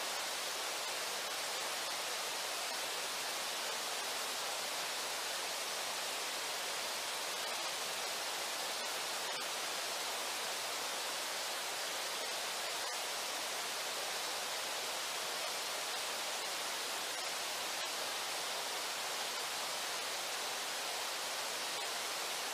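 Steady rush of the Brooks River's fast water at the falls, an even hiss that never changes.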